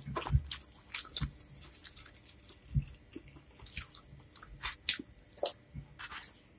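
Close-miked wet mouth sounds of eating spicy fried instant noodles: irregular chewing clicks and lip smacks, then a slurp of noodles being sucked in near the end. A faint steady high whine sits underneath.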